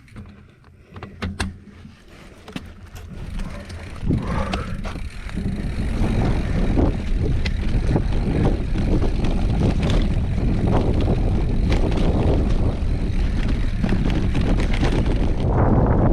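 Wind buffeting the microphone of a moving rider, building after about four seconds into a loud, steady rumble as speed picks up, with scattered clicks and rattles.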